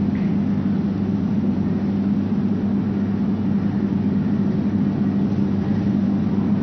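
A steady low hum with no change and no other sound.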